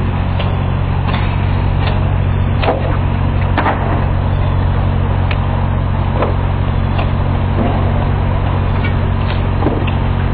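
A steady, loud low engine drone from construction machinery running, with scattered short clicks and knocks on top.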